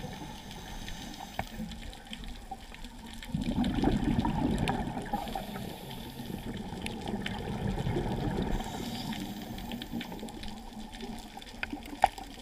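Scuba diver's exhaled regulator bubbles rushing past an underwater camera, a low gushing that swells about three seconds in and runs for several seconds, with scattered faint clicks and one sharp click near the end.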